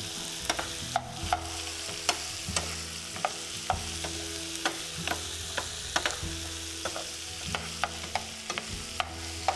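Diced onion, garlic and bell pepper sizzling in a black skillet while a large metal spoon stirs them, clicking against the pan about twice a second.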